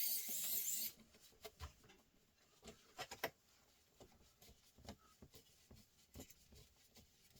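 Hand tools scraping and clicking on the plastic and metal parts of a TV being taken apart: a loud hissing scrape in the first second, then scattered light clicks and rubs.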